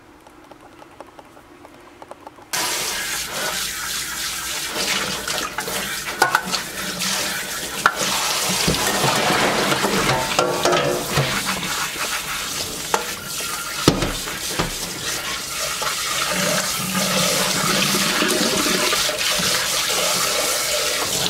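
Kitchen faucet spraying water into a stainless-steel pot in the sink as it is rinsed, starting suddenly about two and a half seconds in and running steadily, with a few knocks.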